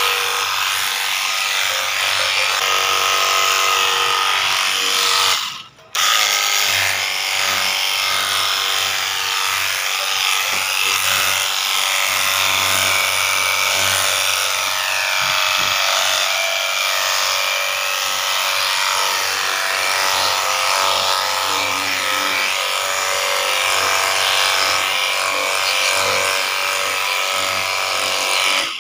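Battery-powered high-pressure washer running, its small motor-pump whining over the hiss of the water jet spraying a car body. The spray cuts out briefly about six seconds in, then runs steadily again until it stops at the end.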